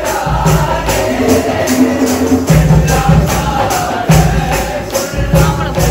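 Group singing with a steady beat of about three strokes a second underneath, the low part of the beat dropping out briefly a few times.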